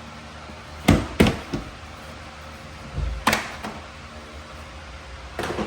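Plastic side panel of an ATV being worked loose and pulled off: several sharp knocks and clacks of plastic, with a pair about a second in, another around three seconds and a quick cluster near the end.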